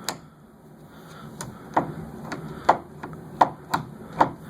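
Door handle being worked, its latch mechanism giving about eight sharp clicks and knocks at uneven intervals. The handle's inside lock ring has worked loose, leaving play in the handle and making it hard to operate.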